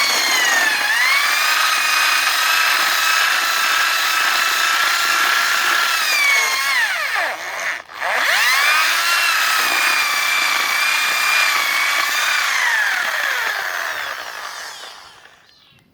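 Electric drill motor repurposed to drive a homemade banana grinder, running with a high whine. About halfway it slows sharply and picks up speed again, then near the end it winds down and stops.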